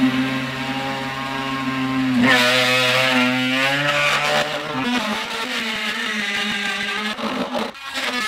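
Dremel rotary tool running and cutting into the plastic wall of a tool box, a steady motor whine that starts to waver and shift in pitch about two seconds in as it bites into the plastic.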